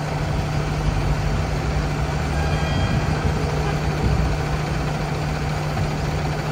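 Heavy rescue truck's engine idling, a steady low hum.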